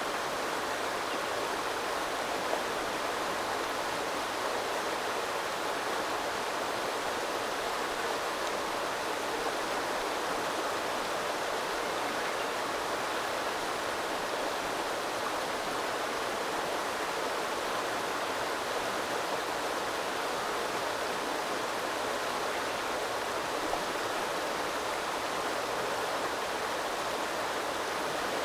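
A small river flowing, a steady rushing and burbling of water.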